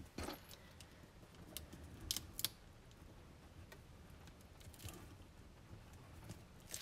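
Faint handling of black cardstock: a few short clicks and soft scrapes as the paper frame is pressed down and its edge smoothed with a bone folder, the sharpest click about two and a half seconds in.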